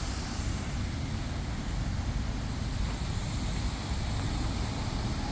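Steady wash of city road traffic mixed with the hiss of a fountain's jets splashing into its basin.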